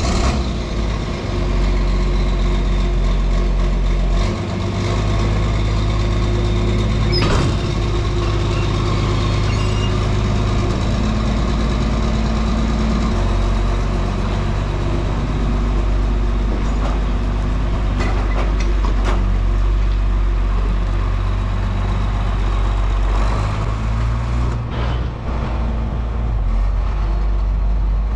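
Farm tractor's diesel engine running steadily, its note stepping a couple of times as the load or revs change.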